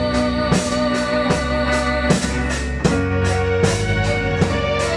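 A boy singing into a microphone over a backing track, holding long notes, with a steady drum beat about every three-quarters of a second.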